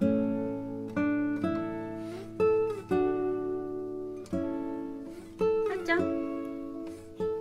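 Acoustic guitar music: plucked notes and chords ring out and fade, with a new one struck every half second to a second and a few short slides in pitch.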